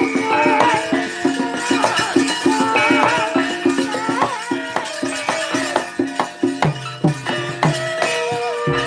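Javanese gamelan playing wayang kulit accompaniment: struck bronze metallophones and gongs sounding steady pitched notes over a quick, even pulse of strokes, with a wavering melodic line above them.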